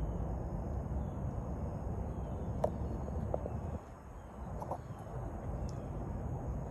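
Steady low outdoor rumble with a few short, faint bird calls, from fowl, a little before and after the middle.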